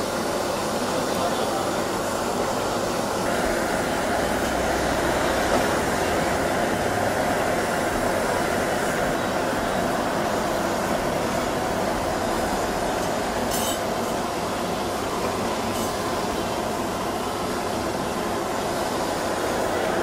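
Butane gas torch flame hissing steadily as it sears sea urchins in a wire grill basket.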